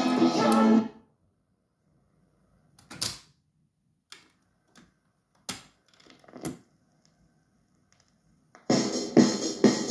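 A record playing rock-and-roll with singing is cut off about a second in. The Dansette Transit's autochanger then cycles with a few separate mechanical clicks and clunks as the tone arm lifts and swings out and the next record drops. Music starts again near the end.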